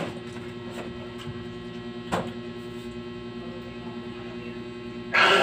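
Steady electrical hum from a room appliance, with one sharp click about two seconds in and a loud burst of noise just before the end.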